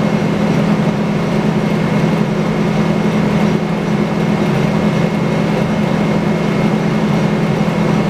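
Sawmill machinery running steadily: a constant low drone with a faint, steady high whine above it, no cut starting or stopping.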